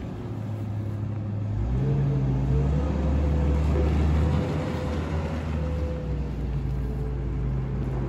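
Wheel loader's diesel engine running as it carries a square bale and drives in, growing louder over the first few seconds, with its engine note rising about two seconds in.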